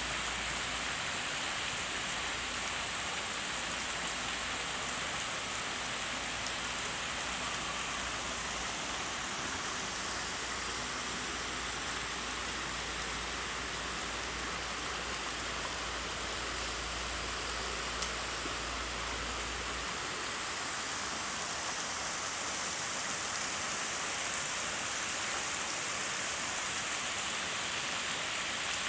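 Steady, even hiss of water, like rain falling on a surface, with a low rumble underneath that stops about two-thirds of the way through.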